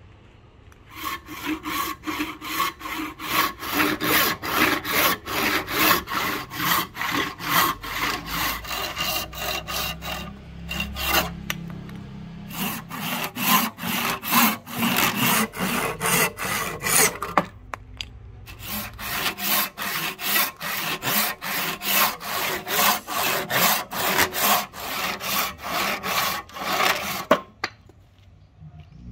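Hand saw cutting a clamped rosewood blank, in rhythmic back-and-forth strokes. The sawing stops briefly twice before carrying on, and ends shortly before the close.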